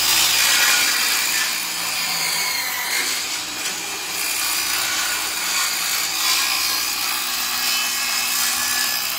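Ryobi circular saw cutting through a sheet of thin plywood: a loud, steady cut under load, the blade winding down after the piece comes free.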